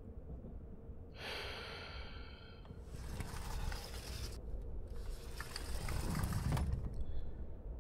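Train-interior ambience: a steady low rumble, with a short pitched sound just after one second and two hissing swells of noise about three and five seconds in.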